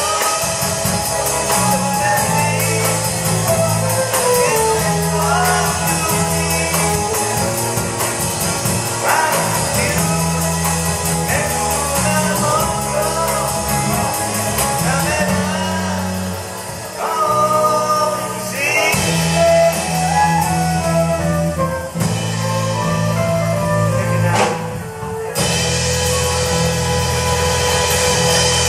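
Live band playing a song on electric guitars, bass guitar and drum kit, with a melody line over a steady bass and drum groove.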